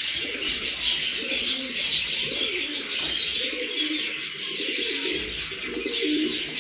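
Racing pigeons cooing, several at once and overlapping, with high chirping calls scattered over the top.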